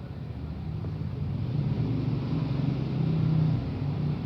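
A steady low mechanical hum, like a running engine, growing a little louder about three seconds in.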